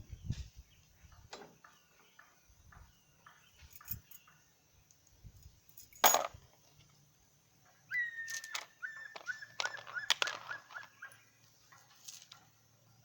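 Hand-tool work on a wooden door and mortice lock: scattered clicks and knocks, one sharp knock about six seconds in, then a run of short high squeaks and clicks.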